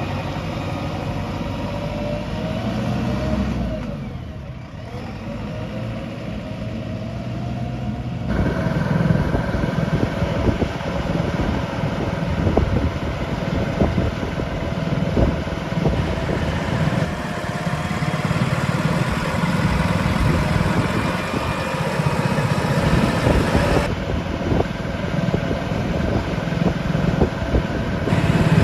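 JCB 3DX backhoe loader's diesel engine running, dipping briefly about four seconds in, then louder and rougher from about eight seconds in.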